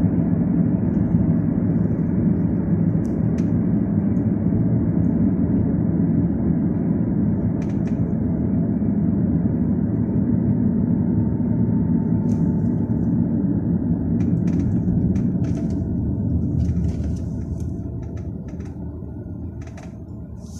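Road and engine noise heard inside a moving car's cabin: a steady low rumble that fades over the last few seconds as the car slows toward a stop.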